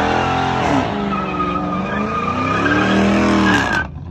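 Dodge Challenger doing a burnout: the engine revs up and down at high speed while the spinning rear tyres squeal steadily. The sound cuts off abruptly near the end.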